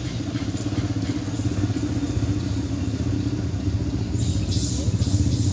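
A motor engine running steadily with a low rumble, growing slightly louder, with a brief high hiss joining about four seconds in.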